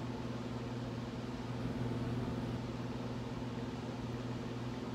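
Steady low electrical hum with a faint even hiss: room tone.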